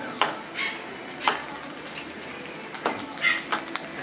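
Yorkshire terrier puppies' claws clicking and scrabbling on a hard, smooth floor as they run and play, with a few sharper knocks and a brief high squeak a little after three seconds in.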